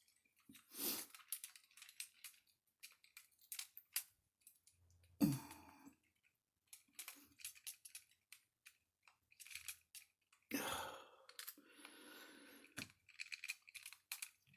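Scattered quiet clicks and a few short scraping, rustling handling noises of hand-assembling a plastic RC car kit, as small screws are driven by hand screwdriver into plastic parts.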